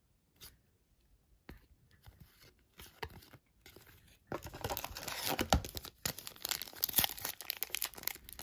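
A few light taps of cards being handled. About four seconds in, a trading-card pack wrapper starts crinkling and tearing as it is opened.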